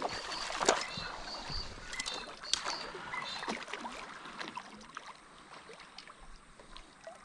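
A large hooked trout thrashing and splashing at the water's surface while being played on a fly rod: a run of irregular splashes, busiest in the first few seconds and thinning out towards the end.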